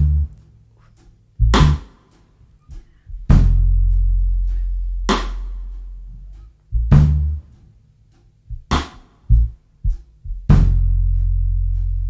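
A live jazz band opens a slow ballad with sparse drum-kit strikes, about one every two seconds, each with a long fading tail, over long, low electric bass notes.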